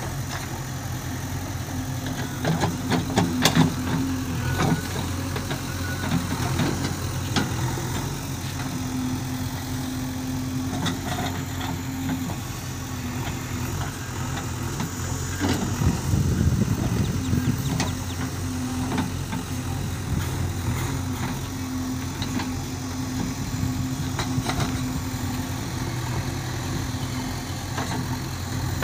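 JCB 3DX backhoe loader's diesel engine running steadily while the backhoe digs, with a steady hum that comes and goes. There are a few sharp clanks and louder moments about three to four seconds in and again around sixteen seconds in.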